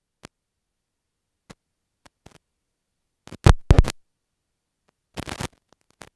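Dead silence broken by a few faint clicks, then a cluster of heavy thumps about three and a half seconds in and a short scratchy rustle about five seconds in.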